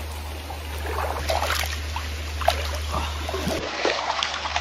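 Hands scooping and splashing shallow creek water onto a face: a run of irregular wet splashes and drips, over a steady low rumble.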